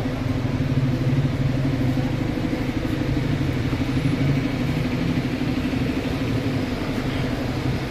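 A vehicle engine idling with a steady low hum, over street traffic noise.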